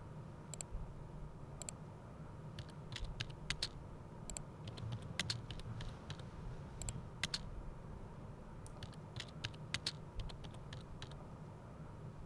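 Computer keyboard typing: scattered single keystrokes and short irregular runs of clicks, over a faint steady low hum.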